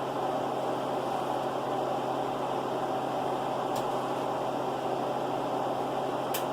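Steady whirring of a fan or motor with an electrical hum underneath, and two faint ticks, one in the middle and one near the end.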